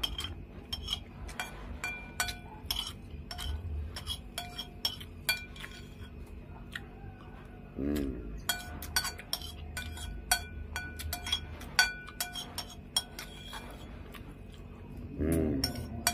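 Metal spoon clinking and scraping against a white ceramic plate: many short, ringing clinks, irregular and close together, as the last of the rice and sauce is scooped up and the plate is scraped clean.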